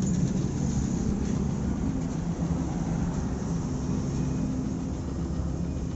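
Honda Livo's 110 cc single-cylinder four-stroke engine idling steadily, easing slightly quieter. The engine has a 'ting ting' noise that the mechanic puts down to the piston, which he suspects has seized.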